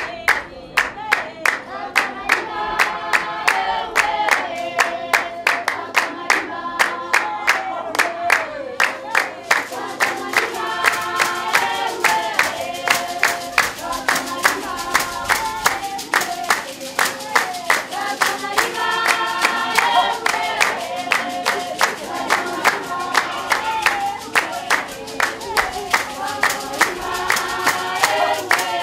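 Basarwa (San) dance song: a group of women singing together over steady, sharp hand-clapping, about three claps a second.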